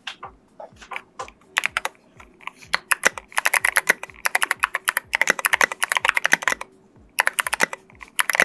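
Typing on a CIY GAS67 mechanical keyboard with clicky switches and SA-profile keycaps. It starts with scattered single keystrokes, then goes into fast runs of sharp clicks.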